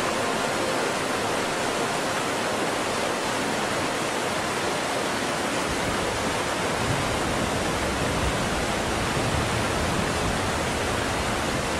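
Steady, close roar of Niagara Falls' water crashing down, with a low rumble growing in from about halfway through.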